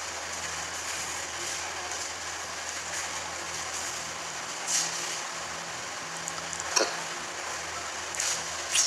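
Room tone of a phone recording: a steady hiss over a low hum, with a brief rustle a little before halfway and a sharp click about two-thirds of the way through, then a couple of short rustles near the end.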